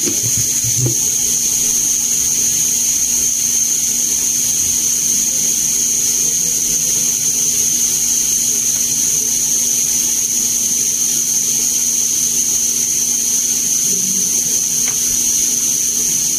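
A steady high-pitched electric whine over a constant hiss, with a low hum beneath, from powered repair-bench equipment running unchanged.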